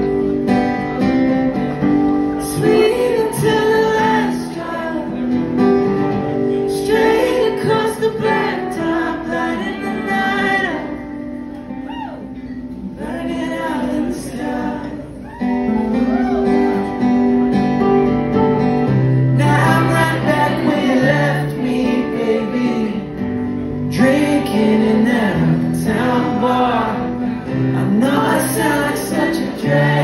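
Live band playing with guitar, female and male voices singing together in phrases, with a quieter stretch between phrases partway through.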